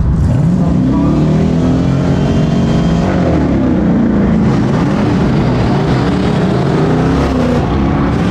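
Drag-racing car engine at full throttle accelerating down the strip, its note climbing in pitch, dropping back about four seconds in, then climbing again.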